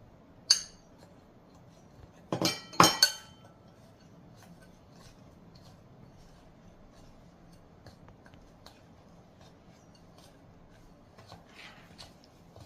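A spoon or utensil clinking against a mixing bowl while butter, sugar and flour are stirred together: one sharp clink, then a quick run of several loud ringing clinks about two to three seconds in, followed by faint light taps.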